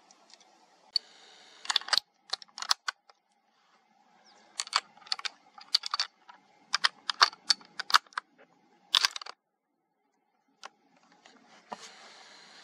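Sharp metallic clicks and clacks of a scoped bolt-action rifle being handled and readied, in irregular quick clusters that stop about three quarters of the way through, with a couple of lone clicks after.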